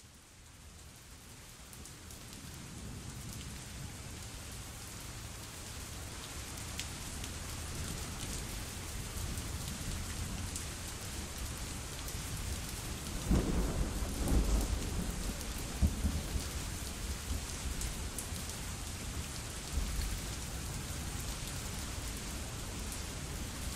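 Steady rain falling as a thunderstorm, fading in over the first few seconds, with a loud roll of thunder about halfway through and fainter rumbles after it.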